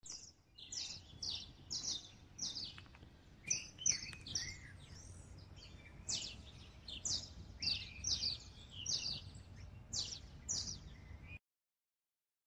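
Birds calling: a quick run of short, high chirps, each dropping in pitch, about two a second, over low background noise. The sound cuts off abruptly about eleven seconds in.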